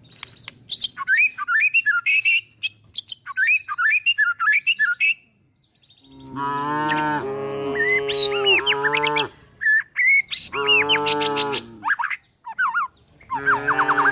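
Birds chirping for the first few seconds, then cattle mooing in three long, loud calls while the birds keep chirping.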